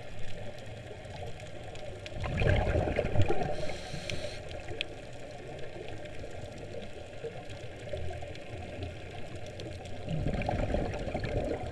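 Scuba diver's exhaled bubbles gurgling up from the regulator, heard underwater, in two louder bursts: one about two seconds in and another near the end, over a steady low rumble.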